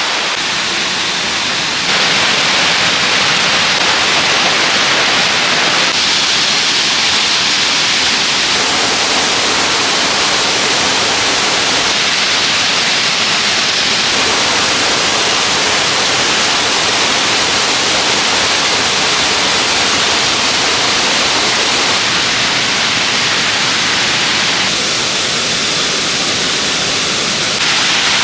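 Steady rush of stream water flowing, its level and tone shifting abruptly a few times.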